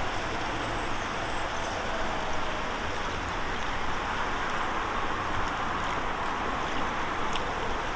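Steady wind noise, a constant rush with a low rumble of wind buffeting the microphone.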